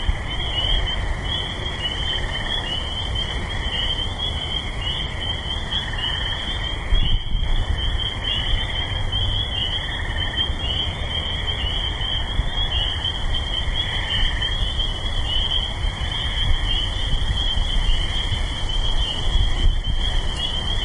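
Dense spring chorus of frogs calling together: a high, pulsing band of many overlapping calls with a lower band of calls beneath it. Under it runs a steady low rumble of distant highway traffic.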